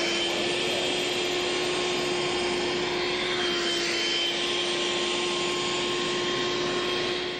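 Portable vacuum cleaner built with 3D-printed ABS parts, running steadily at full power: an even rushing noise with a steady hum.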